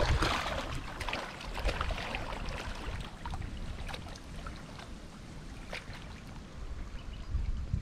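Water splashing as a swimmer pushes off into the water and swims away. The loudest splashing comes at the start, then the strokes grow fainter.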